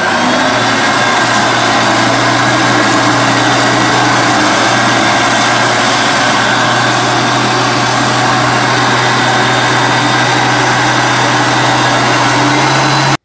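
Hoover upright vacuum cleaner running steadily at full power, a loud motor hum with a faint high whine, switched off abruptly near the end.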